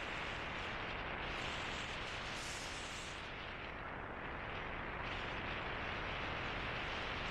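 Wind rushing and buffeting over the microphone of a DJI Osmo Pocket camera on an electric bike riding downhill, a steady roar of wind noise that eases slightly about four seconds in.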